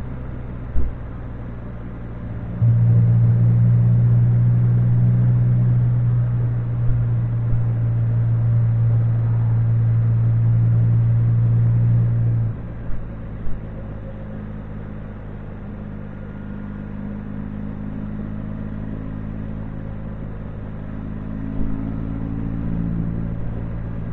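Can-Am Spyder three-wheeled motorcycle engine running steadily on the move. Its note gets louder about three seconds in and drops back about twelve seconds in, with a few short thumps scattered through.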